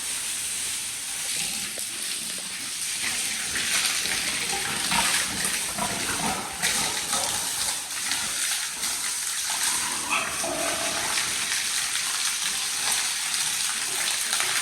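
A hose spraying water to wash down a pig pen floor: a steady hiss with splashing.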